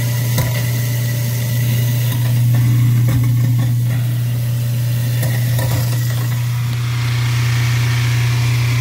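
Kitchen garbage disposal running with a strong, steady hum and a few faint knocks, while the sink drain backs up into the other bowl. The plumber takes the sound for something lodged in the disposal that shouldn't be there.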